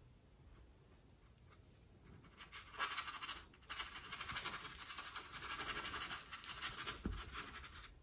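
Paintbrush scrubbing acrylic paint onto a stretched canvas in many quick, short scratchy strokes, starting about two and a half seconds in.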